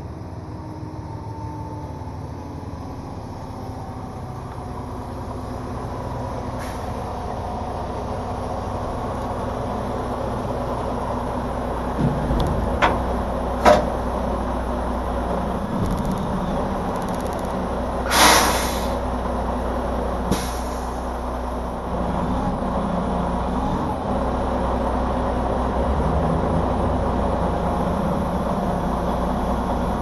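A Freightliner Cascadia semi tractor's diesel engine running as the truck backs up, growing louder as it nears. A few sharp clunks come about twelve to fourteen seconds in, then a loud hiss of air from the air brakes at about eighteen seconds, and a shorter one about two seconds later.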